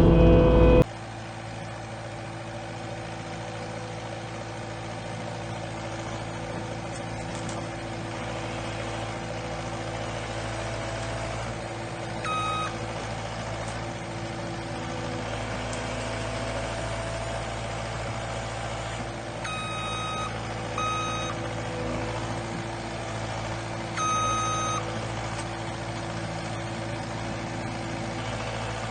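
New Holland skid steer engine running steadily, heard from inside the cab, with its backup alarm beeping in short bursts four times while reversing. The first second is louder and cuts off abruptly.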